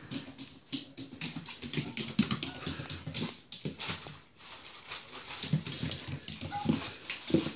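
Cairn terrier puppy whimpering and grumbling as it tugs at and shakes a plastic carrier bag, the bag rustling and crinkling in irregular bursts.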